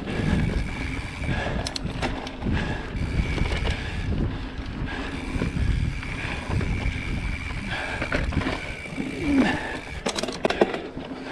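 Mountain bike ridden along a dirt forest trail: tyres rumbling over the ground and the bike rattling. Bursts of sharp clicks and knocks come about two seconds in and again near the end, as it rides over roots and stones.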